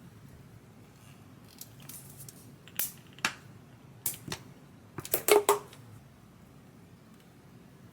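Objects being handled on a hard surface: a few sharp clicks and knocks about three and four seconds in, then a quick cluster of louder knocks about five seconds in.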